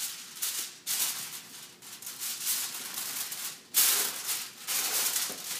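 Aluminium foil crinkling and crackling in short rustles as it is pressed and crimped down over a baking pan, with one louder crackle a little before four seconds in.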